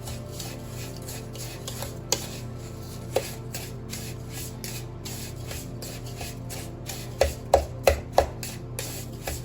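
A utensil scraping and stirring a damp, gritty powder mixture of washing soda, borax and Epsom salt wetted with vinegar, the consistency of wet sand, in a bowl: a run of short rasping strokes over a steady low hum. A few sharp knocks come in quick succession in the last third, as the utensil strikes the bowl.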